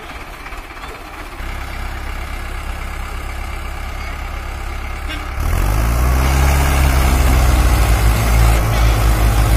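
Tractor diesel engine running under heavy load, its revs stepping up about a second in and then jumping to full throttle around five seconds in, as it strains against a loaded sugarcane trailer stuck in the field.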